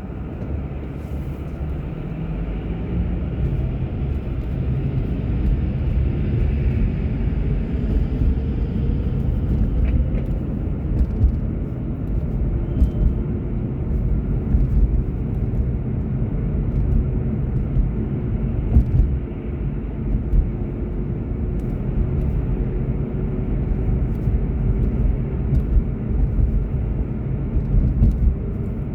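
A car being driven: a steady low rumble of engine and road noise, with a faint engine tone that rises in pitch a few seconds in as the car speeds up, then holds steady.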